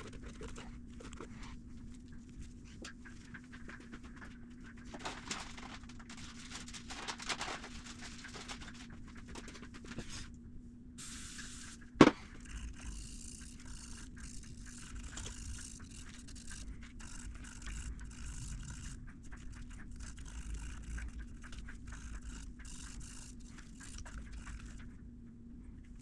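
Small brush scrubbing deposits out of a motorcycle engine's intake ports by hand, giving irregular scratchy rubbing with one sharp click about halfway. A steady low hum runs underneath.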